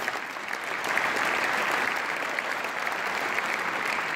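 A large audience applauding steadily, a dense wash of many hands clapping.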